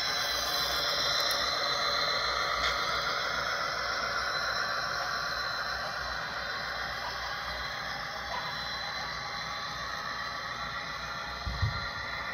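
Model train running along the track: a steady whirring rail noise from the wheels and motor of a Santa Fe FP45 model locomotive and its passenger cars, slowly fading as the train runs into the tunnel, with a brief low bump near the end.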